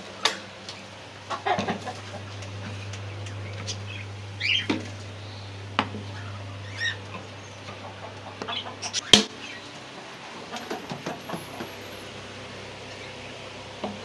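Scattered knocks and rattles from handling a wire cage and plastic water drinkers, with one sharp knock about nine seconds in as the loudest sound. A few short bird calls come between them, and a steady low hum runs until about that knock.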